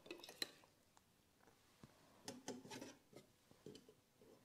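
Faint kitchen handling sounds. A spatula scrapes a plate, with a sharp click in the first half-second. Then come soft taps and shuffling about two seconds in, as a raw salmon fillet is laid onto the air fryer basket's grate and pushed into place.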